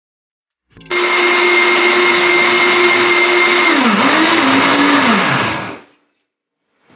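Electric countertop blender running with a jar of chopped tomatoes and water, blending them into juice. It starts about a second in with a steady motor hum, the motor's pitch dips and wavers near four seconds, then it winds down and stops about six seconds in.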